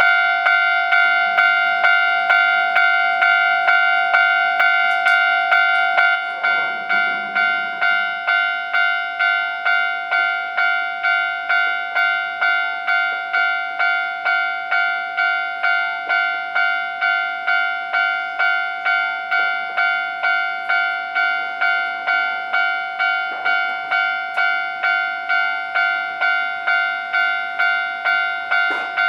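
Japanese railway level crossing warning bell dinging in a steady, even rhythm, a little under two dings a second. The crossing is signalling that a train is approaching. The dings become slightly quieter about six seconds in.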